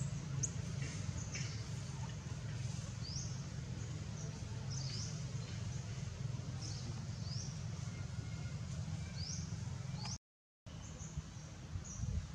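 Bird chirping, short high calls repeating every second or so, over a steady low rumble. The sound cuts out for a moment near the end.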